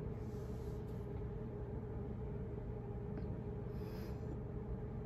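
Quiet room tone: a steady low hum with no distinct event, and a faint brief rustle about four seconds in.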